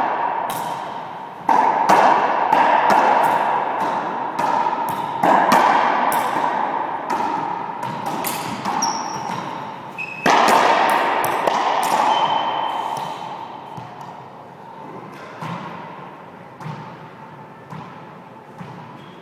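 Racquetball rally: the rubber ball cracks off racquets, walls and floor again and again, each hit ringing and echoing around the enclosed court. The hits come thick and loud for about twelve seconds, then give way to a few softer knocks as play stops.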